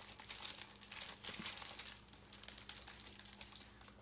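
Clear plastic bags of model-kit parts crinkling as they are handled and shifted in the box, busiest in the first second or so and thinning out toward the end.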